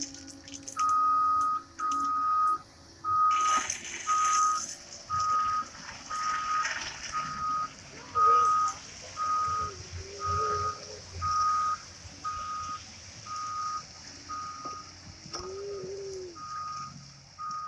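Excavator's travel alarm beeping about once a second, one steady pitch, over the low running of the machine. A couple of louder rushing noise bursts come through in the first half.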